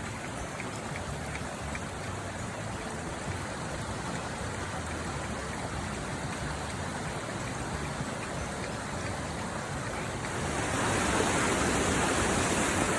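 Rushing water of a waterfall and its stream, a steady roar that grows louder about ten seconds in.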